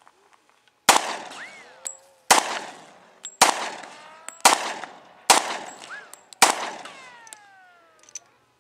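Pistol fired six times in slow succession, about one shot a second, each shot sharp and loud with a tail that dies away over the following second; a falling whine trails after the last shot.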